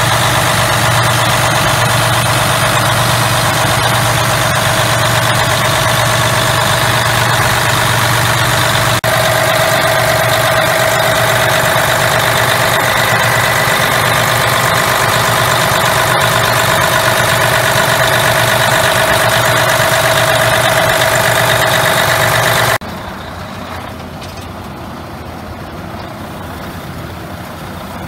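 Freightliner Cascadia truck tractor's diesel engine idling steadily, heard close up in the open engine bay. About 23 seconds in, the sound drops abruptly to a quieter idle heard from beside the cab.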